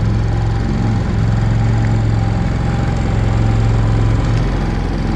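Two Predator 3500 inverter generators running together in parallel, a steady engine hum with a strong low tone.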